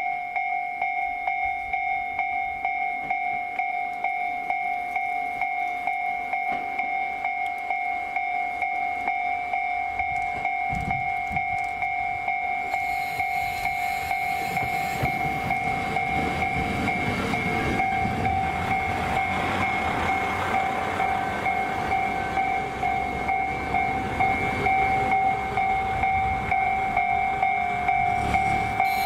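A railway warning bell rings throughout in a fast, even, repeating ding. About halfway through, a JR Hokkaido KiHa 40 diesel railcar comes out of the tunnel and rolls in close by. Its engine and wheel noise grow louder toward the end.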